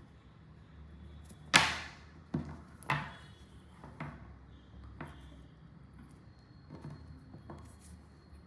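A sharp knock about a second and a half in, then a run of lighter taps and clicks about once a second, typical of objects being handled and set down on a surface.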